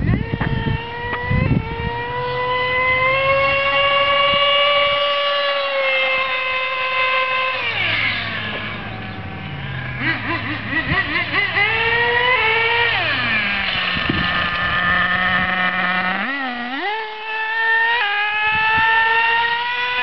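Remote-control buggy's motor running at high revs, a high buzzing whine that rises and falls as the car speeds up and slows. It drops to a low pitch twice, about eight and about fourteen seconds in, then climbs back up.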